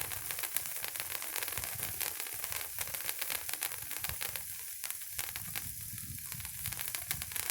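Handheld Patriot stick sparkler burning: a steady, fast crackling sizzle of spraying sparks.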